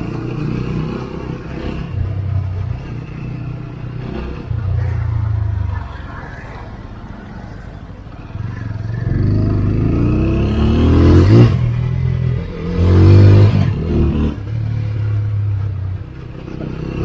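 TVS Apache RTR 200 4V's single-cylinder engine heard from the rider's seat while riding. It drops to a quieter idle for a few seconds in the middle, then revs rise twice as the bike pulls away and accelerates.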